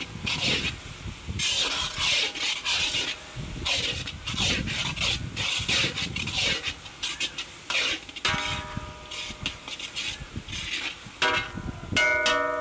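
Long metal spatula scraping and stirring in a large iron kadai in quick repeated strokes, with the pan ringing twice when struck, about eight seconds in and near the end.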